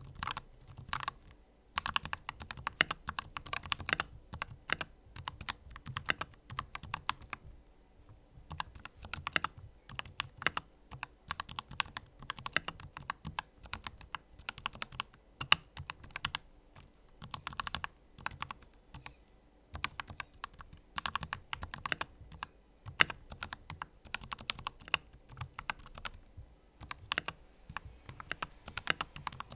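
Typing on an AKKO 5108S mechanical keyboard with AKKO CS Lavender Purple switches and Macaw ASA-profile keycaps: rapid runs of keystrokes broken by a few short pauses.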